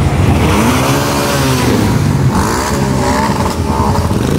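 Several cruiser and touring motorcycles riding slowly past over a steady low engine rumble. Their engines rise and fall in pitch several times as riders roll on and ease off the throttle.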